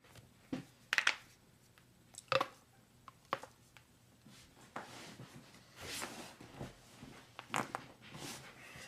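Human joints cracking: a series of short, sharp pops, the loudest a quick cluster about a second in and another just after two seconds, then more scattered pops with soft rustling of movement in between.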